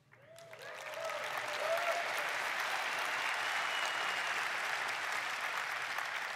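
Audience applause that swells over the first second or so, then holds steady.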